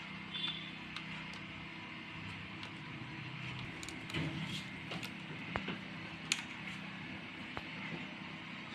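Faint scattered clicks and creaks of a faulty 4440 amplifier IC being worked back and forth on its circuit board to snap its pins off, over a steady low hum.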